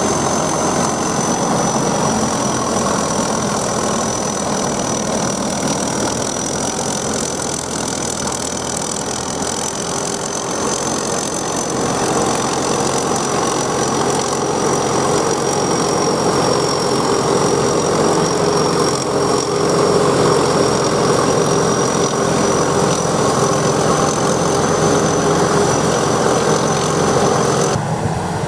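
SAKPATTANA SS100 mini rice combine harvester running steadily: a continuous engine and machinery drone with a constant high whine over it. The sound changes abruptly just before the end.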